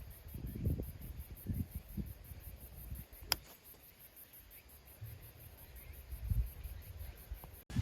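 Wind buffeting the microphone in uneven low gusts, under a high, rapid, evenly pulsing chirp of insects. A single sharp click a little past three seconds in.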